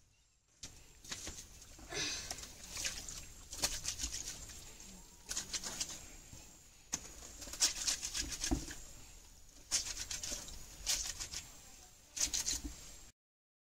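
Clothes being hand-washed in a plastic tub of soapy water: the cloth is scrubbed, squeezed and sloshed in irregular bursts of wet squelching and splashing. It cuts off suddenly near the end.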